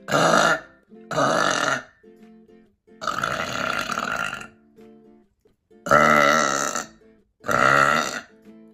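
A person forcing out five loud burps one after another, each about half a second to a second long except the third, which is drawn out for about a second and a half.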